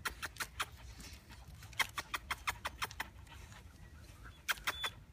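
Puppies pawing at a wire mesh fence: irregular clusters of sharp clicks and rattles as claws strike the wire, with a brief high squeak near the end.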